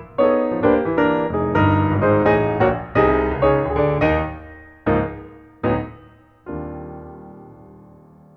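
Background piano music: a run of chords that slows to a few single struck chords, the last one ringing out and fading.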